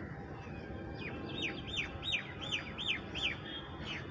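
A bird calling: a quick run of six or seven short, sharp notes, about three a second, starting about a second in.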